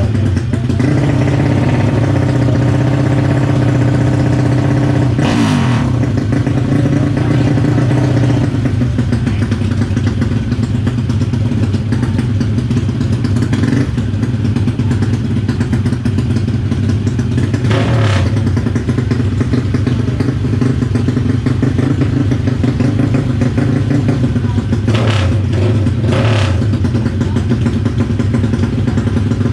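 Motorcycle engines running steadily, with a few short, sharper bursts over the top, about 5, 18 and 25 seconds in.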